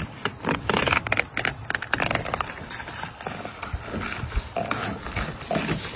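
Irregular sharp knocks and clicks of a freshly caught sockeye salmon being handled and shifted on a wet plastic cutting board, most frequent in the first couple of seconds, over a steady low rumble.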